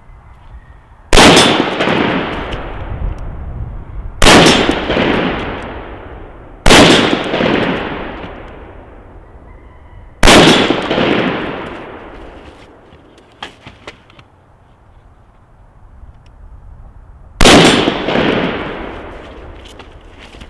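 Five single rifle shots from an AR-style carbine, spaced irregularly a few seconds apart with a longer gap before the last. Each crack is followed by a long echo that dies away over two to three seconds. The pauses are the shooter moving to the next barricade port between shots.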